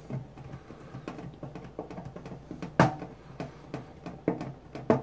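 Fingernail scraping and picking at a paper sticker on a tin lunch box: a run of small, irregular scratches and clicks, with a sharper click about three seconds in.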